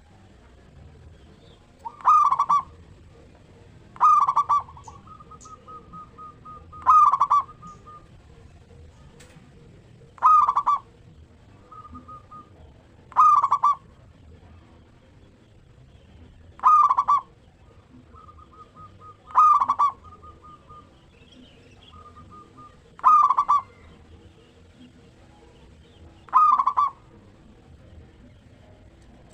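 Zebra dove (perkutut) cooing its song: a loud, short cooing phrase about every three seconds, nine in all, with fainter quick repeated coo notes between the phrases.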